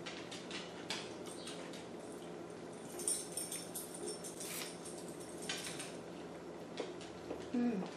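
Close-miked mouth sounds of eating sushi, with small clicks and taps of chopsticks and a small bowl, the loudest cluster about three seconds in. A short falling hum of the voice comes near the end.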